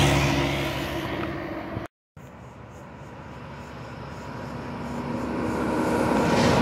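Diesel tanker semi-truck passing close by and fading away, its engine and tyres dying down. After a brief cut of silence about two seconds in, a Volvo tanker truck approaches and grows steadily louder.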